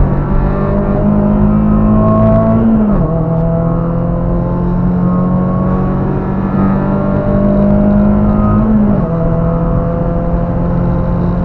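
Car engine pulling hard under acceleration, heard from inside the cabin over road noise. Its pitch climbs steadily, then drops suddenly as it shifts up a gear, about three seconds in and again about nine seconds in.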